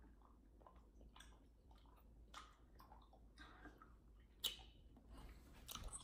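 Faint chewing and crunching of hard Ramune soda-flavoured candy, a scatter of small crunches and clicks, with one sharper click about four and a half seconds in.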